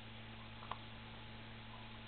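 Light handling noise from a laptop's screen and hinge parts: a single small plastic click about a third of the way in, over a faint steady low hum.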